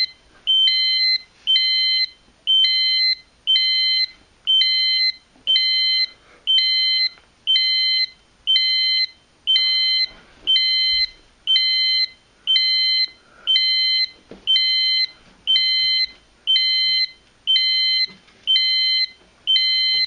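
Fire alarm system's piezo sounder beeping steadily in pre-alarm, a high multi-tone beep repeating about every three-quarters of a second. A zone 3 smoke detector has tripped and the system is counting down to full alarm.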